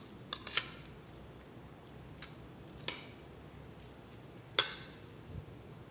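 A utensil stirring shredded cabbage coleslaw with mayonnaise in a plastic bowl, knocking against the bowl in a handful of scattered sharp clicks; the loudest comes about four and a half seconds in.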